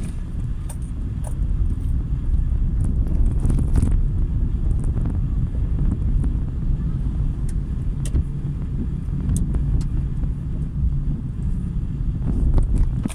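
Car's road and engine noise as a steady low rumble while driving on wet streets, heard inside the cabin, with light clicks now and then.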